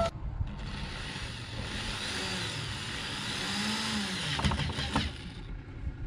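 Corded electric drill running for about five seconds, driving a screw through a metal hinge into a wooden door, its motor pitch sagging and recovering under load. A few short knocks near the end as it stops.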